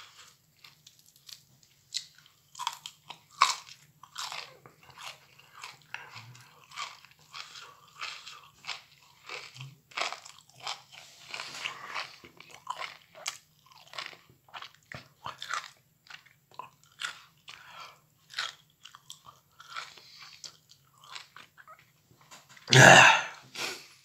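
A person biting and chewing microwaved broccoli: irregular crunching and mouth sounds. One much louder sound of about half a second comes near the end.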